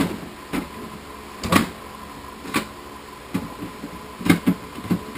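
Hollow plastic knocks and clunks, about six separate ones, as a 1.5-inch PVC overflow pipe is worked down into a plastic tote of bio balls.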